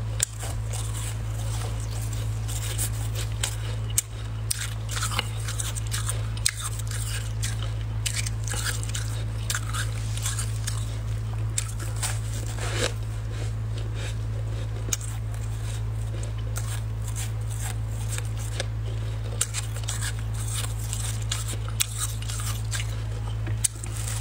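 Freezer frost being bitten and chewed: many sharp, crisp crunches of packed ice crystals, with a steady low hum underneath.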